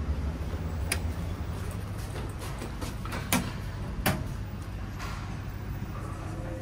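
Elevator car pushbuttons (Everbright EB2003 buttons on a stainless steel panel) being pressed: three sharp clicks, the second the loudest, over a steady low hum.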